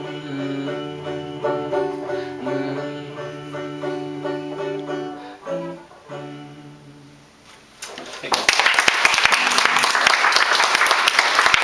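Banjo playing the closing plucked notes of a song, the last ones ringing out and fading about seven seconds in. Then a small group of listeners breaks into applause.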